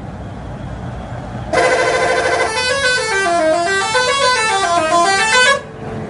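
Telolet horn on a Subur Jaya coach: a loud held chord of several notes starts about a second and a half in, then the horn plays a fast stepped melody that falls and rises in waves for about three seconds and cuts off suddenly. Low engine and road noise runs underneath.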